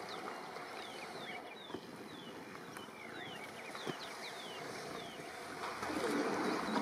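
Outdoor ambience of a crowded hippo pool: a steady wash of noise with a bird's short falling chirps repeated every half second or so. It grows louder with low rumbling sounds about six seconds in.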